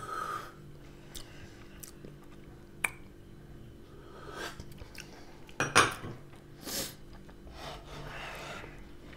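Drinking from a small ceramic bowl close to the microphone: sips and swallows, with brief clinks of the bowl and a louder burst about six seconds in.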